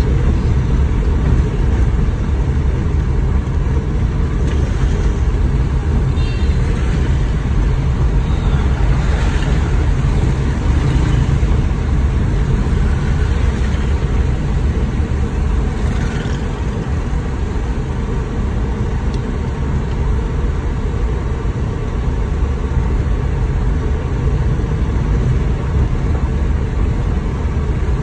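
Steady cabin noise of a small car driving slowly through heavy rain: a constant low rumble of engine and tyres on a wet, flooded road, with a hiss of rain and spray over it.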